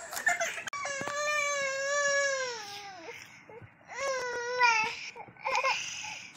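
A baby crying: one long wail about a second in that drops in pitch as it ends, a shorter cry about four seconds in, and brief whimpers near the end.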